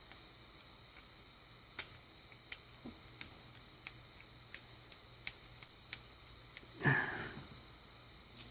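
Faint, scattered small metallic clicks as a Master Lock padlock is handled and reassembled, with a single sniff about seven seconds in.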